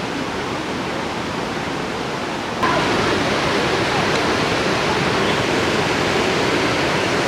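Rushing river water in a rocky gorge, a steady rush of whitewater. About two and a half seconds in it suddenly becomes louder and brighter and stays so.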